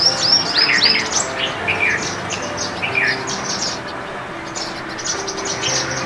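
Indian silverbills chirping: short, high, falling chirps in quick runs, a flurry at the start and another near the end, with single calls between.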